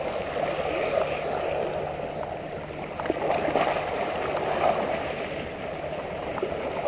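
Small sea waves lapping and gurgling against shore rocks, a steady wash with a few faint clicks.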